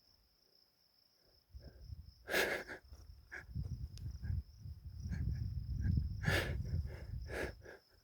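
A horse breathing and blowing through its nose close to the microphone. From about a second and a half in there is a low rushing rumble with several sharp noisy blows, the loudest about two and a half and six seconds in, over a steady high insect trill like crickets.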